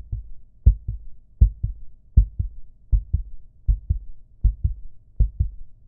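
Heartbeat sound effect: low, steady double thumps, a strong beat followed closely by a softer one, repeating about every three quarters of a second.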